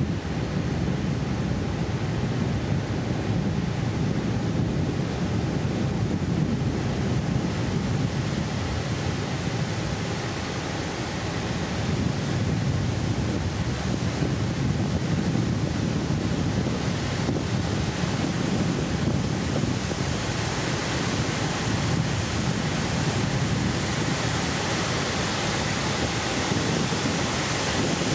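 Floodwater pouring over the full width of a concrete dam's spillway in a heavy, steady rush, mixed with wind rumbling on the microphone.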